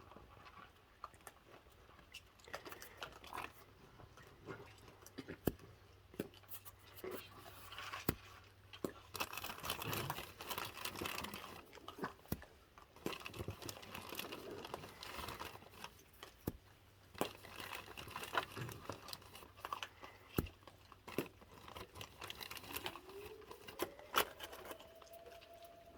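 Raccoons crunching and chewing cookies, with small clicks and crinkling. About 23 s in, a volunteer fire department's siren starts winding up, rising in pitch and then holding one steady tone.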